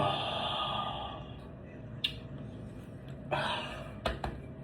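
A person yawning: a breathy exhale fades out over the first second, another short breath comes a little past three seconds in, and a few faint clicks are scattered between.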